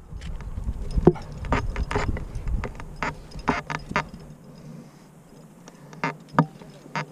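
A rock climber moving up a rock face: scattered sharp clicks and scrapes of hands, shoes and clipped-on gear against rock, over a low rumble that dies away about halfway through.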